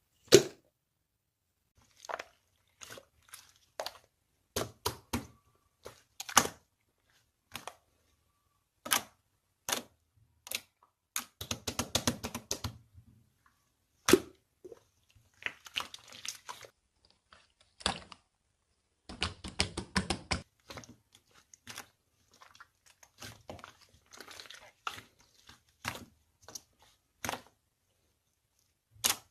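Slime being handled and squished: irregular sharp pops and clicks, with denser crackling stretches about a third of the way in and again about two-thirds through.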